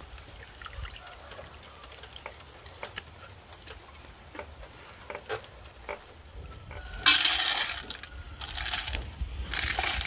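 Soaked sticky rice being drained from an enamel basin: faint trickling and scattered drips for several seconds. From about seven seconds in there are three louder rushes of pouring.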